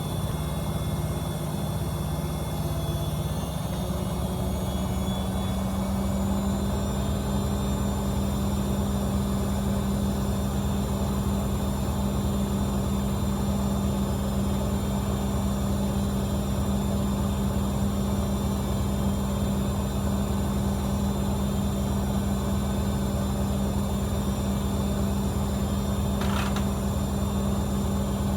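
AEG Öko-Lavamat 74780 front-loading washing machine spinning. Its motor whine rises in pitch for a few seconds early on and then holds steady at high spin speed, typical of the final spin up to 1400 rpm.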